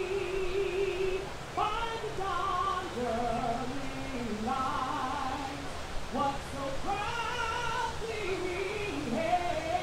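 A woman singing solo, holding long notes with a wavering vibrato and gliding up and down between pitches.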